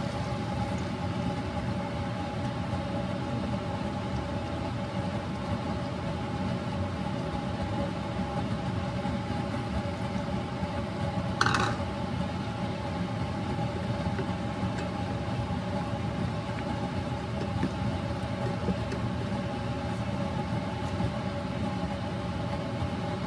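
Steady hum with two steady tones from a running kitchen appliance, over a pan of adobo cooking on a glass-top hob after water is added. A brief knock comes about eleven and a half seconds in.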